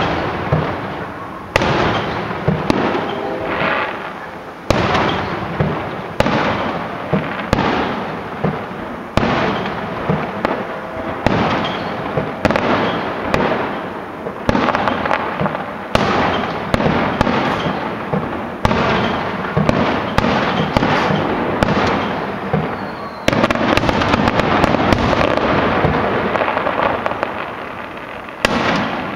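Aerial fireworks shells bursting one after another, a loud boom about every one to one and a half seconds, each trailing off in an echo. About three quarters of the way through comes a stretch of dense rapid crackling, which fades before a last boom near the end.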